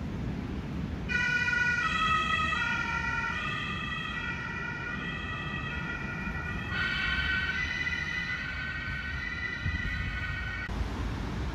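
An emergency vehicle's siren wailing, switching back and forth between pitches, over a low steady background rumble. The siren starts about a second in, grows louder a little past halfway, and cuts off abruptly near the end.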